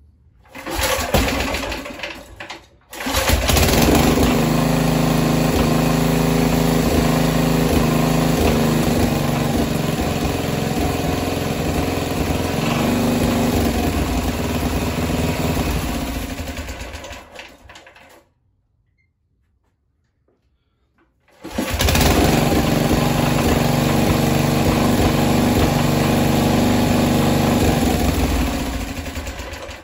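Petrol engine of a walk-behind tractor starting on starting fluid: a brief burst, then it catches about three seconds in and runs steadily for some fourteen seconds before dying away. After a few seconds of quiet it starts again and runs until it fades near the end, a hard-starting engine that the owner blames on old, poorly evaporating petrol.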